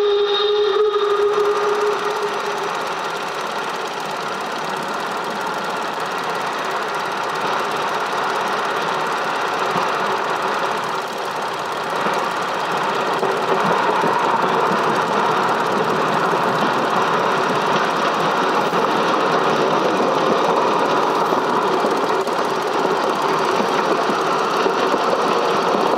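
A steam whistle sounds a short steady note that ends about two seconds in, over a steady mechanical clatter that runs on without a break.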